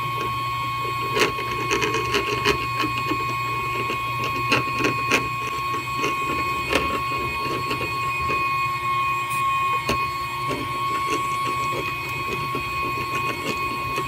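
Soldering iron tip dragged and tapped across flux-coated BGA pads on a circuit board while re-tinning them and clearing residual solder, with irregular small crackles and ticks as the flux smokes off. Underneath runs a steady high whine and a low hum from bench equipment.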